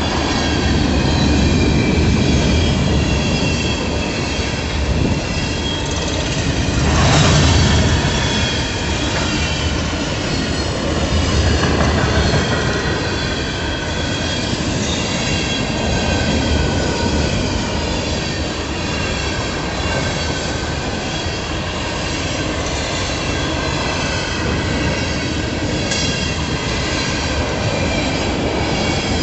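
Coal train's freight cars rolling past at close range: a steady rumble of steel wheels on rail with a faint, wavering high squeal from the wheels. Briefly louder about seven seconds in.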